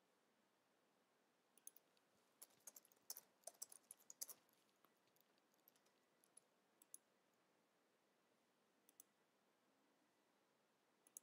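Faint computer keyboard keystrokes in a quick run lasting about two and a half seconds, followed by a few scattered mouse clicks.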